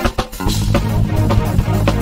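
Background music with a steady beat; a sustained bass line comes in about half a second in.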